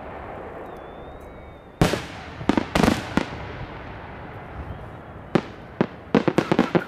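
Aerial firework shells bursting: one sharp bang about two seconds in, a cluster of bangs about a second later, then a quick run of pops near the end.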